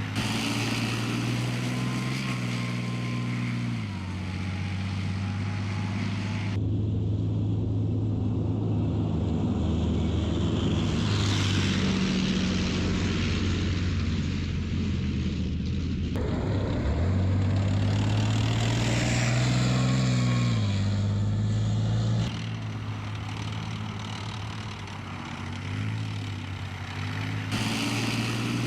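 Leopard 2 tank's V12 diesel engine running, its note rising and falling, with the sound changing abruptly several times between takes.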